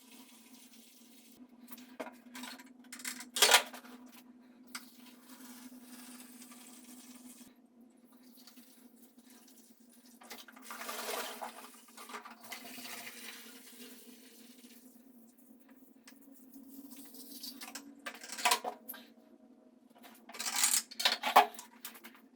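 Fuel being drained from a motorcycle fuel tank into a container: splashing and trickling in short spells, with clinks and knocks of the container and tools being handled, over a faint steady hum.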